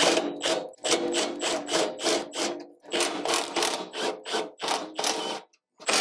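Ratchet driving out the bolts that hold a mower's back cover, worked in a run of short whirring bursts, about two a second, with a brief pause near the end.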